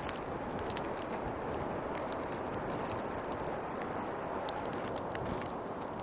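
Steady rush of storm wind, with scattered sharp ticks of snow striking the tent fly.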